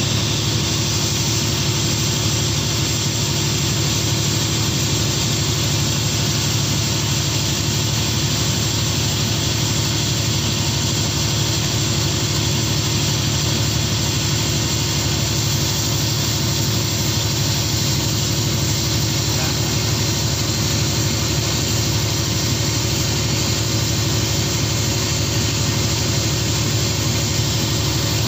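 Fishing boat's engine running steadily at an even pitch, a constant low hum under a continuous hiss.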